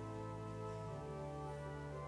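Church organ playing slow, sustained chords, the bass note changing about halfway through.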